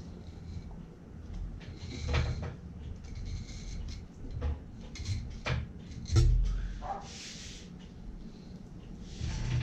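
Knocks and short scrapes of a boning knife and a fish being handled on a plastic cutting board during filleting, with a heavier thump about six seconds in.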